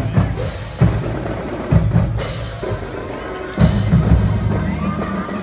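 Marching band drumline playing a rhythm, with heavy bass drum strikes every second or so.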